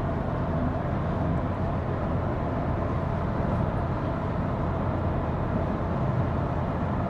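Steady road and tyre noise of a Tesla on the move: a low even rumble with a hiss above it.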